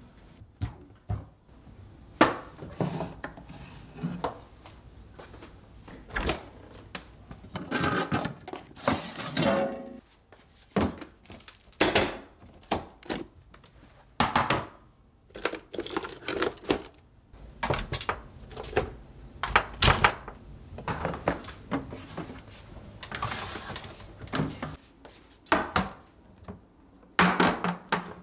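Kitchen handling noise: irregular knocks, clacks and rattles of storage containers and lids being moved about on a countertop, some sharp ones close together.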